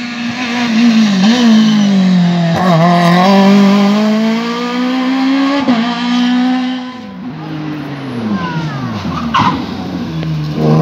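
Rally cars at full throttle on a tarmac stage, the engine pitch climbing and dropping with each gear change. About two thirds in, one car's engine note falls away as it slows, with a short squeal, before another car's engine starts up loud at the end.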